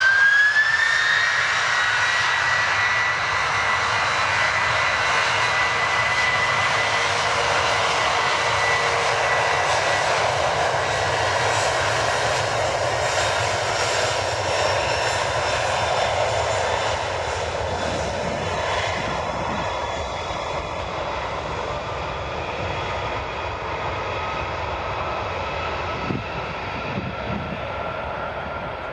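Twin-engine wide-body jet freighter running its engines at high power on the runway: a loud jet rush with a fan whine that rises in pitch in the first second and then holds steady, fading slowly as the aircraft moves away.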